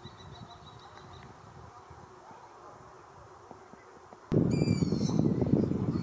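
Begging call of a long-eared owl chick played back through a phone speaker: one squeaky call that slides downward, about three-quarters of the way through. It comes in over a sudden rise of low background rumble, and a faint thin high whine sits near the start.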